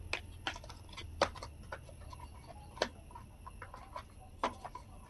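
Light clicks and taps of a cardboard smartwatch box and its paper insert being handled and fitted back together. A few sharp clicks come at irregular intervals.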